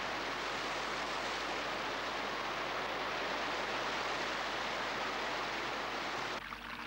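Steady rush of water pouring over a small waterfall into a rocky pool. Near the end it cuts off and music with held tones comes in.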